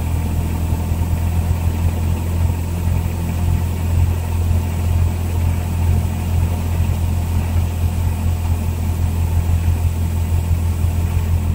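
Cessna 172's four-cylinder Lycoming piston engine running steadily, a deep even drone heard from inside the cabin.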